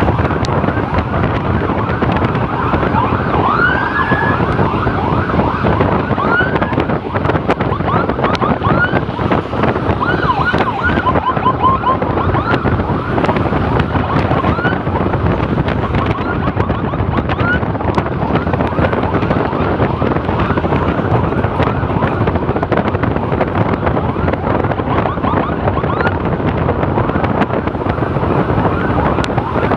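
Emergency siren sounding in short rising sweeps, most of them in the first half, half-buried under heavy wind noise on the microphone and the rush of a moving motorcycle.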